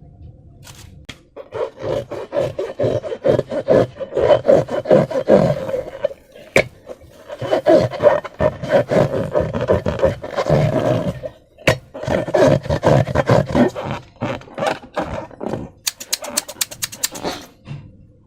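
Slime being squeezed and worked by hand, squelching wetly with dense crackling pops of trapped air, in three long stretches. Near the end comes a quick run of sharp clicks.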